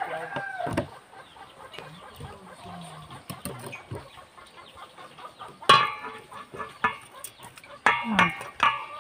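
Chickens clucking, with one loud squawk about halfway through and a quick run of calls near the end; a rooster's crow trails off in the first second. Light clicks of a knife on a wooden cutting board come and go underneath.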